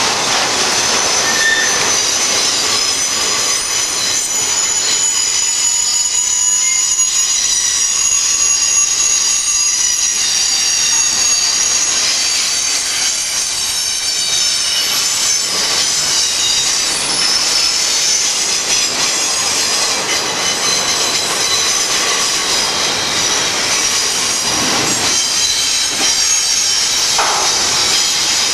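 Train cars rolling past with their steel wheels squealing against the rails in several high, steady tones, over the continuous rumble of the passing train.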